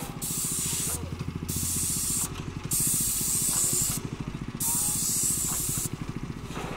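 Four bursts of pressurised spray hissing, each about a second long with short gaps between, over a small engine running steadily underneath.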